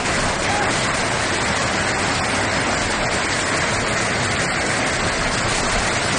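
Heavy hail falling: a loud, steady, dense clatter of countless hailstones striking the ground.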